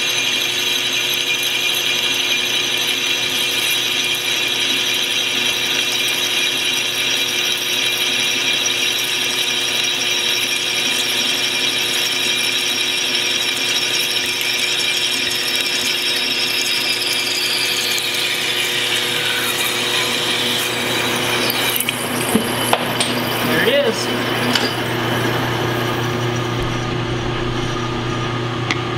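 Metal lathe running under power feed while a trepanning tool cuts into a mild steel plate, a steady high whine from the spindle and cut. About eighteen seconds in the whine falls in pitch and fades as the spindle coasts to a stop, followed by a few clanks.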